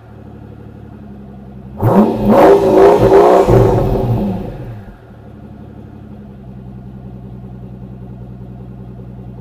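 Mercedes-Benz S600 W221's twin-turbo V12, its mufflers deleted, idling and then revved once about two seconds in. The pitch climbs sharply, holds for about a second and a half, and falls back to a steady idle about five seconds in.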